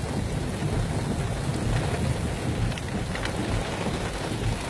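Wind buffeting the phone's microphone: a steady low rumble with no distinct events.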